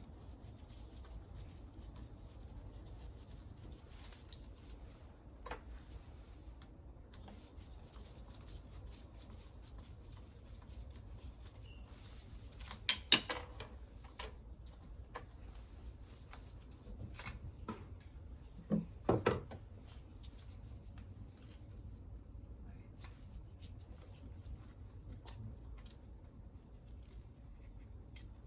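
Small clicks and taps of hand tools and metal parts being handled while a scooter engine is stripped down, with two short clusters of louder metallic clicks, one near the middle and one about two-thirds of the way through.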